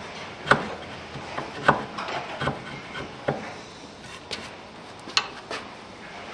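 Hand-pushed wood chisel paring thin layers out of a notch in a wooden timber: a string of sharp clicks about once a second, with scraping between strokes.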